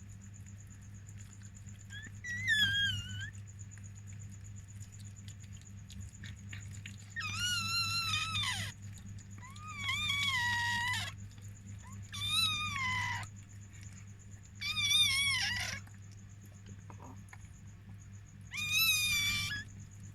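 Newborn chihuahua puppy crying: six high, wavering squeals of about a second each, over a steady low hum.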